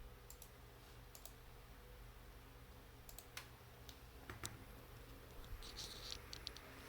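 Scattered faint clicks and light taps of small tools and parts being handled on an opened laptop, with a quick run of clicks near the end, over a low steady hum.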